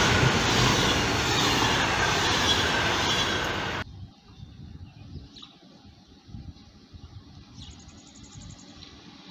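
Passenger coaches rushing past at speed: steady wheel and rail rolling noise that cuts off suddenly about four seconds in. Faint trackside background follows, with a few short high chirps.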